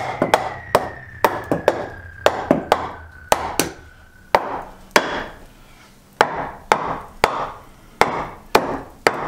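Steady hand-hammer blows on old wooden wall framing, about two a second, knocking out rotted timber at the foot of the wall.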